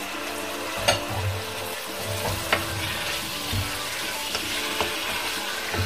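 Freshly added raw pork pieces sizzling in hot olive oil with onion and ginger in a pot, stirred with a wooden spatula that clicks now and then against the pot.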